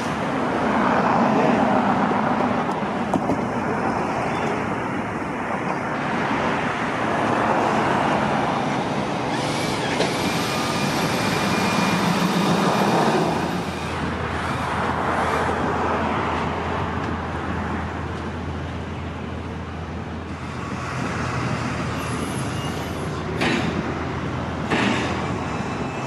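Road traffic: vehicles passing one after another, each rushing past with a swell and fade, and a steady low engine hum joining about halfway through.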